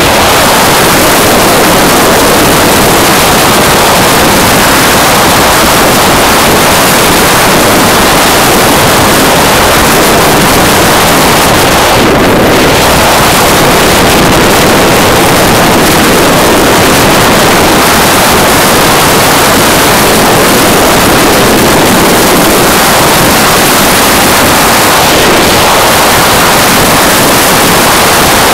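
Loud, steady wind rush over the microphone of a camera on a motorcycle at highway speed. It is a dense, even noise with no clear engine note standing out.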